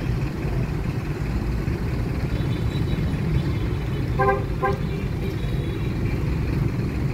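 Two short vehicle horn toots in quick succession about four seconds in, over the steady low rumble of bus engines idling.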